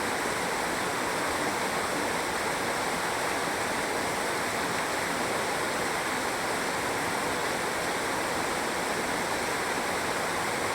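Steady rush of a waterfall, an even roar of falling water with no change throughout.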